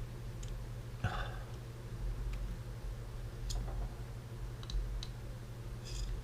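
A few light, sharp clicks and taps from small camcorder parts being handled during reassembly, the strongest about a second in, over a steady low hum.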